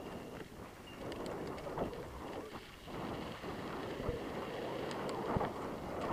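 Mountain bike rolling fast along a dry dirt singletrack: tyres crunching over dirt and leaf litter, wind buffeting the microphone, and the bike rattling over the bumps, with a couple of sharper thumps in the second half.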